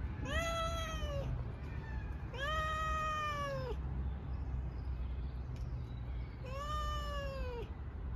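Cat meowing three times, a few seconds apart; each meow lasts about a second and rises then falls in pitch.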